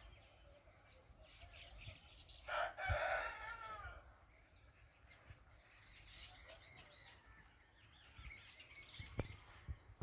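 A rooster crowing once, a loud call of about a second and a half starting about two and a half seconds in, with small birds chirping faintly afterwards.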